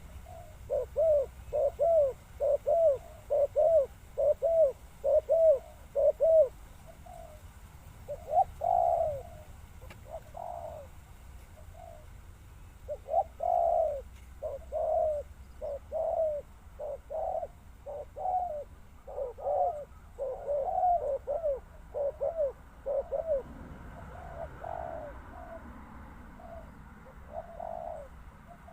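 Spotted dove cooing: a quick run of short arching coos, about two a second, then after a pause further coos in looser groups.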